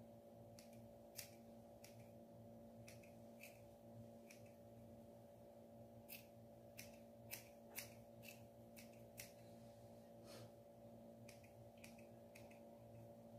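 Scissors snipping a small dog's face and ear fur: about twenty faint, sharp snips at irregular spacing, over a steady low hum.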